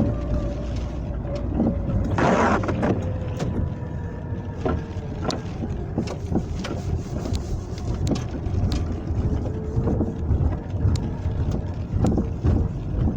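Lada Kalina driving over a rough road: a steady rumble with irregular sharp knocks, one noisier burst about two seconds in. The knocks come from the front suspension, a knock the owner cannot trace.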